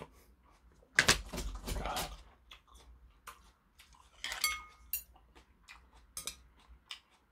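Porcelain bowl set down on a metal tray with a loud clunk about a second in, followed by scattered clicks of metal chopsticks against the bowl, with one clink ringing briefly about four and a half seconds in.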